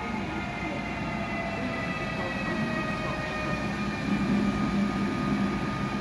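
ÖBB Taurus electric locomotive hauling passenger coaches into a station and slowing toward a stop. Under a low rumble from the wheels, several high whining tones fall slowly in pitch as the train slows. The sound grows a little louder from about four seconds in as the locomotive draws near.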